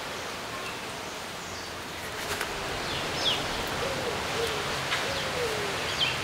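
Steady outdoor background hiss with birds calling: a low, wavering hoot-like call repeating from about four seconds in, and a few short high chirps.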